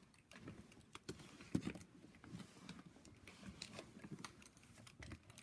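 Faint clicks and light knocks of a 1/6 scale action figure's parts being handled and fitted on, with one sharper click about one and a half seconds in.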